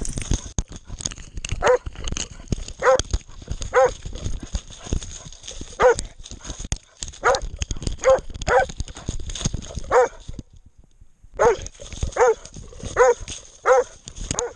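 Hunting dog barking about a dozen times at irregular intervals, short sharp barks, over steady knocking and rustling from the dog-mounted camera as the dog moves. The sound cuts out for about a second near the two-thirds point.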